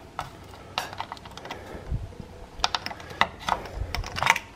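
Radiator pressure cap being twisted off the coolant tank's plastic filler neck: a string of light clicks and ticks with a couple of dull knocks. There is no hiss of escaping pressure, as the engine has only run briefly and is not hot.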